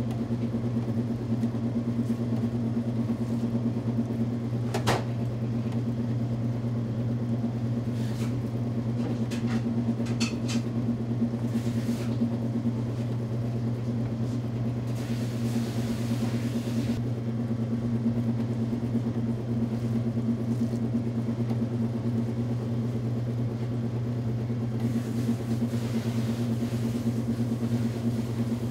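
Electric meat tenderizer running, its motor humming steadily while slices of pork are fed through its spiked rollers, with a few short clicks and rustles of handling.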